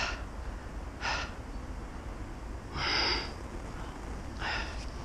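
A man's heavy breathing close to the microphone: four hard breaths, the third the loudest, as he strains against a large catfish on rod and reel.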